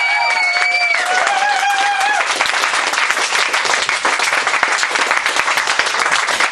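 Audience applauding and cheering at the end of a song. Held cheering voices ring out over the first two seconds, then dense, steady clapping.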